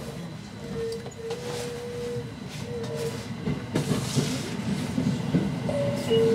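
Aoimori Railway 701 series electric train running, heard from the rear cab: a low rumble of wheels on rail, with a steady electrical whine that cuts in and out and then holds near the end.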